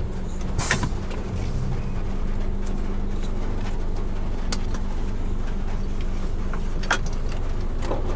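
Mitsubishi Fuso heavy truck, heard from its cab: a steady low engine drone with a constant hum, and a few scattered short clicks and knocks.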